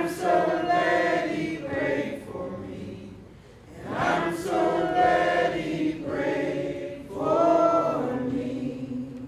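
A group of voices singing a song together in long, held notes, in three phrases that each swell and then fade.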